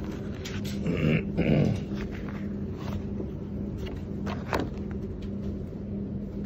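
A steady low hum, with a brief louder sound about a second in whose pitch falls, and a few light knocks from handling the sample pages.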